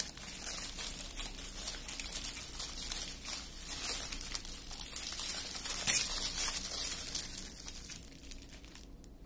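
Small plastic bags of diamond painting drills crinkling as they are handled and sorted: a continuous crackle with one sharper crackle about six seconds in, quieter near the end.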